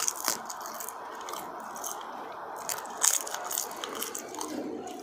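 Close-miked chewing and crunching of dried seaweed, with crisp crackles in clusters at the start and again about three seconds in.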